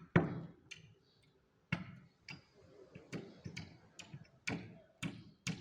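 A series of sharp knocks, roughly two a second, with a pause of more than a second near the start.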